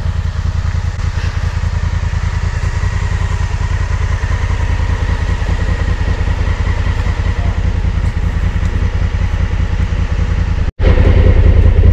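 Motorcycle engine running steadily, its low firing pulse dense and even. Near the end it cuts out for an instant and comes back louder.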